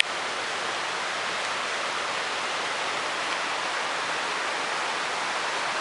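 Steady, even rushing hiss with no separate sounds in it.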